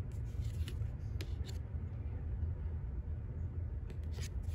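A low steady hum with a few light clicks and rustles of a trading card and card stack being handled and flipped over.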